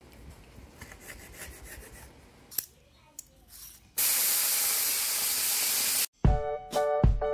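Whole tilapia frying in hot oil in a wok: a loud, steady sizzle for about two seconds that starts and stops abruptly. Before it there are faint knife taps on a wooden cutting board as red bell pepper is sliced. Near the end, music with a beat comes in.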